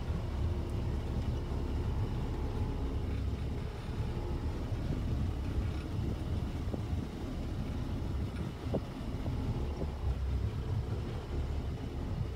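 Steady low rumble of wind on the microphone aboard a small boat under way, with water washing along the hull.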